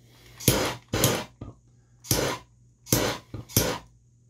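Handheld gas blowtorch fired in five short bursts, each about a third of a second, with quiet gaps between, heating heat-shrink sleeving on a crimped cable end.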